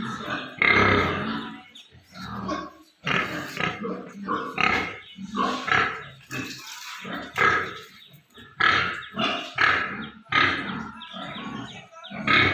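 A group of Yorkshire pigs vocalizing: a dense, irregular run of short calls overlapping one another.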